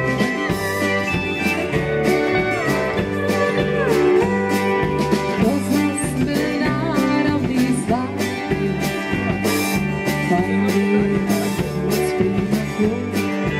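A live band playing a song on guitars, bass guitar and drum kit, with a woman singing into a microphone; the guitar has bending notes over a steady bass and drum beat.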